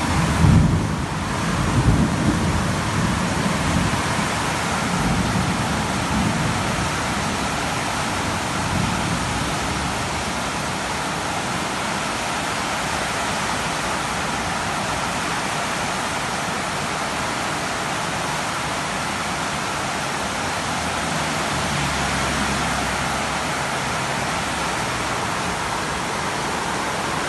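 Heavy tropical downpour: a dense, steady hiss of pounding rain, with low rumbling in the first several seconds and again about three quarters of the way through.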